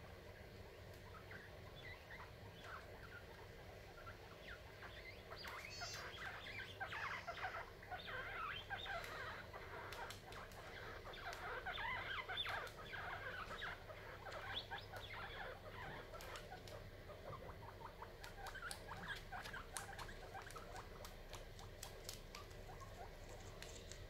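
Guinea pigs chewing and tugging at fresh corn husks: rapid, faint crunching and rustling, busiest in the middle.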